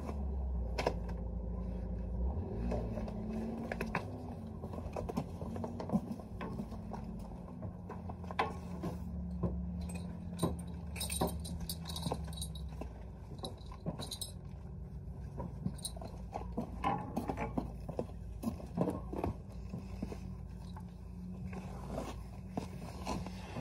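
Horse tack being handled as a Western saddle is put on and cinched: metal buckles and rings clinking and jingling, with scattered clicks and scrapes and a burst of jingling about halfway through, over a steady low hum.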